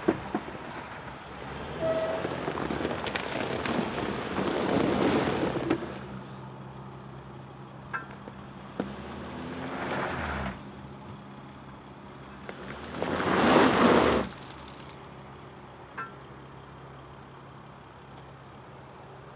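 Mercedes Sprinter 4x4 van's engine running while its mud-terrain tyres churn through wet mud and gravel in three loud surges, the van struggling for grip and close to getting stuck.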